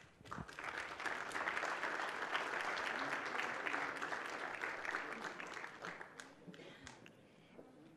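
Audience applauding: the clapping swells within the first second, holds, and dies away about six to seven seconds in.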